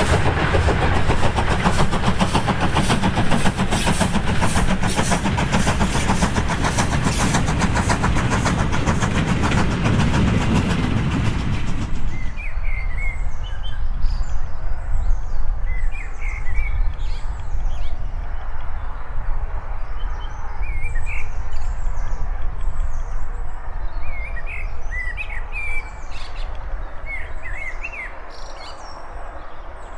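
A steam-hauled goods train passing, its wagons rattling in a fast run of clicks over a heavy rumble, which cuts off abruptly about twelve seconds in. Then birds chirp and sing in short scattered calls over a low steady rumble.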